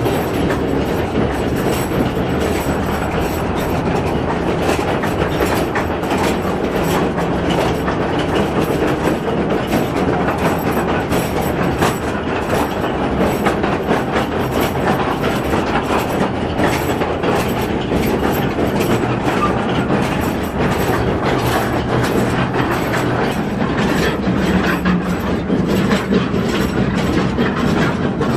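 Mine tour train of open carts riding along rails through an underground tunnel: a steady rumble with constant clattering and clicking of the wheels on the track.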